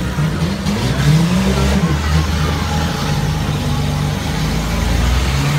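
Compact demolition derby cars' engines revving as they drive around the dirt arena, the pitch rising and falling.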